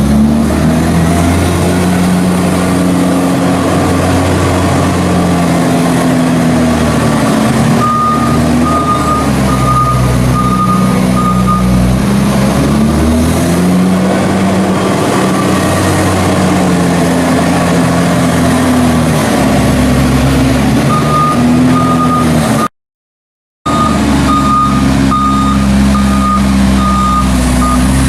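Heavy farm vehicle's engine working steadily as it drives back and forth rolling a maize silage clamp, its pitch rising and falling with each change of direction. A reversing beeper sounds in runs of quick beeps twice. The sound cuts out for about a second near the end.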